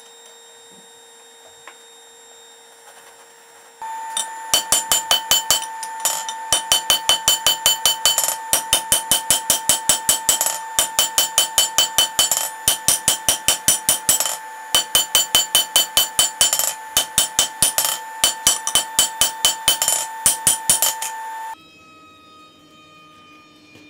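Hammer blows on red-hot steel over a steel anvil, in a fast, even run of about three strikes a second, with the anvil ringing on steadily between blows; the forging is played back at three times speed. The hammering starts about four seconds in and stops shortly before the end.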